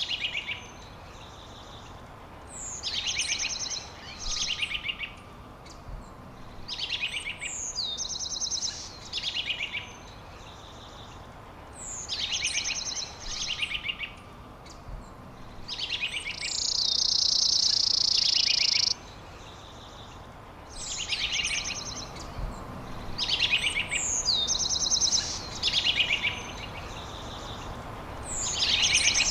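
A songbird singing the same short, high phrase over and over, about every two to three seconds: a quick slurred note followed by a rapid trill. About two-thirds of the way through comes one longer, louder, dense trill lasting a couple of seconds. A steady low outdoor hiss runs underneath.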